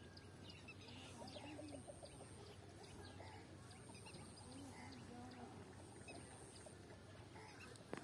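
Near silence: faint outdoor ambience with scattered distant bird calls and chirps, and a faint high tone that comes and goes. A single sharp click near the end.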